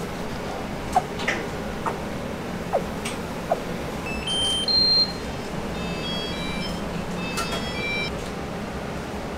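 A quick, irregular series of short electronic beeps at several different pitches, starting about four seconds in and loudest at first, over a steady low hum. A few light clicks and ticks come before them.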